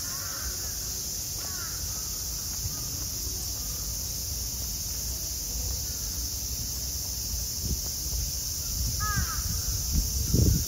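Crows cawing: a few calls near the start and a clearer one about nine seconds in, over a steady high hiss. A low thump comes near the end.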